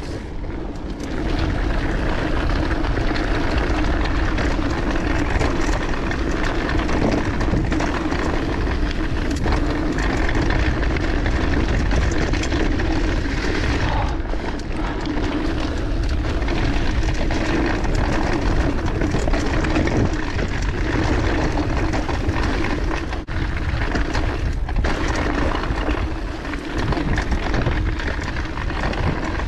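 Mountain bike rolling fast down a dirt singletrack: a steady rush of wind over the microphone on top of the tyres running on dirt and the rattle of the bike.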